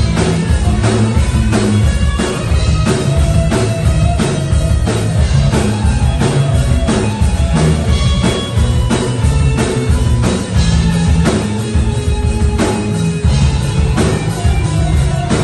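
Live rock band playing loud, a drum kit keeping a steady beat under guitar.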